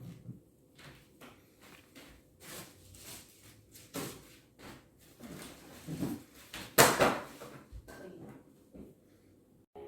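A series of irregular knocks and rustles, as of objects being handled and set down, the loudest about seven seconds in.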